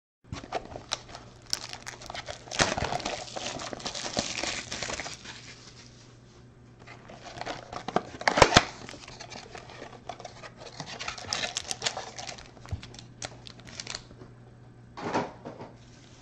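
Packaging of a trading-card box being torn open and handled by hand: irregular crinkling and tearing, with a few sharp louder snaps about eight seconds in, and foil card packs rustling as they are pulled out.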